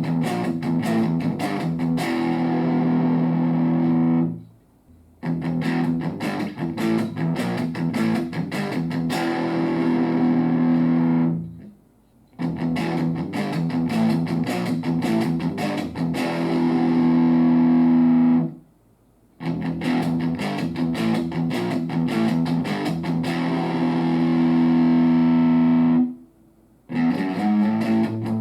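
Distorted electric guitar through a BOSS Nextone Stage amp on its lead channel with the gain at 10. A fast picked riff that ends on a held, ringing chord is played about four times, with a brief silence between each.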